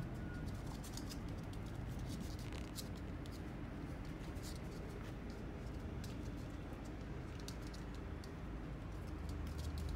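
Scattered small ticks and scratches from a Chihuahua–Shih Tzu mix puppy pawing and nosing at a fluffy rug, over a steady low hum.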